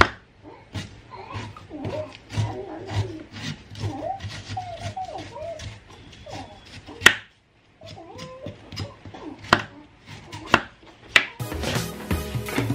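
Kitchen knife peeling and cutting a yam: several sharp knocks of the blade, the loudest about seven seconds in. Under it runs a wavering, sliding pitched sound, voice-like or animal-like, and music comes in near the end.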